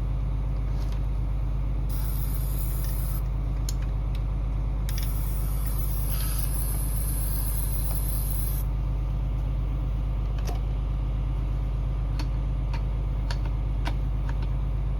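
Aerosol can of chain lube spraying the baler's PTO shaft in two hissing bursts, a short one about two seconds in and a longer one from about five to eight and a half seconds, over a tractor engine idling steadily. A few light clicks between.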